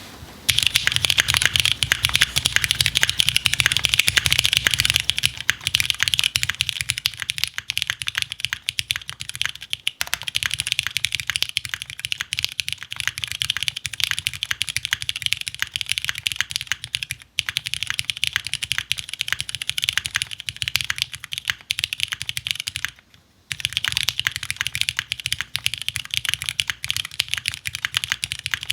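Typing on a 60% o-ring-mounted custom mechanical keyboard with vintage Cherry MX Black switches, a galvanized steel plate and GMK keycaps: fast, continuous keystrokes with two brief pauses.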